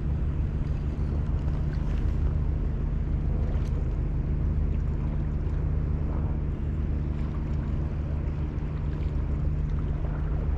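An engine running steadily: a constant low hum that neither rises nor falls, over a soft wash of wind and water noise.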